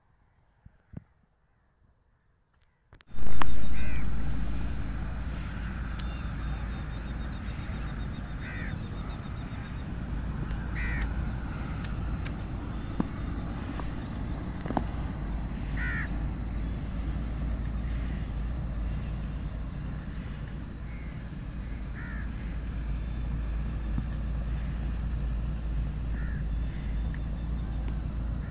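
Crickets and other night insects chirring in a steady high trill, with a few short chirping calls now and then and a low rumble underneath. The sound comes in suddenly with a loud bump about three seconds in, after near silence.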